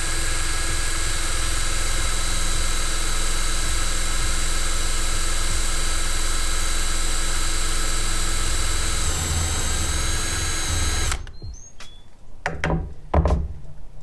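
Electric drill with a 3/8-inch bit boring through a 3/4-inch PVC end cap, its motor running at a steady pitch, then cutting off suddenly about eleven seconds in. A few short knocks follow.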